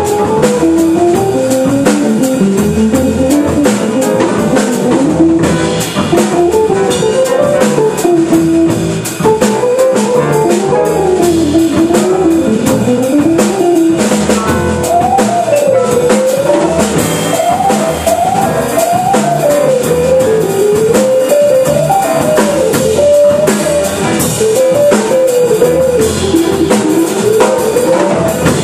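Hollow-body archtop electric guitar playing a quick single-note melody line that runs up and down in pitch, with a drum kit keeping time underneath.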